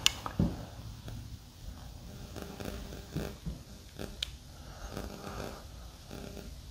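Quiet room tone with a sharp click right at the start, a soft thump just after, and a few faint knocks and clicks, like camera handling and footsteps in an empty room.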